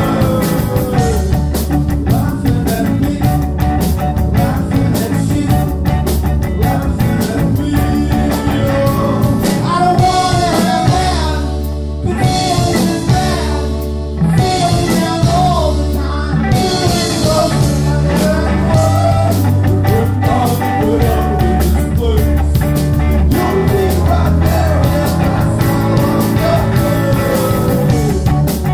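A live rock band playing: electric guitar over a drum kit, with steady low bass notes underneath.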